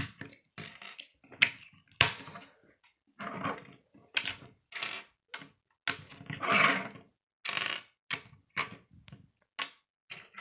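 Plastic Lego bricks being pressed together and set down on a wooden tabletop: a run of irregular sharp clicks and knocks, with a few longer rustles of pieces in between.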